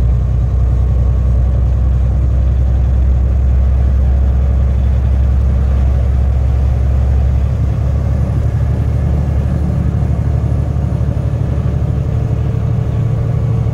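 Semi truck's diesel engine running steadily while driving, heard from inside the cab. About halfway through, the low drone shifts slightly higher in pitch.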